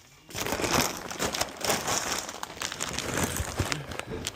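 Steady rustling and crinkling with many small clicks, starting a moment in.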